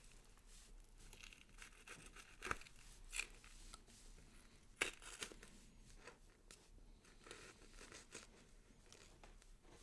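Gory horror sound effect of tearing and crackling, like flesh or skin being ripped: an irregular run of small crackles with three louder sharp rips in the first five seconds.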